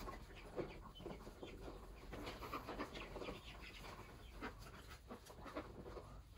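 Faint, scattered calls of ducks and a caged chicken, with small scuffling sounds, as the birds move about on a dirt floor.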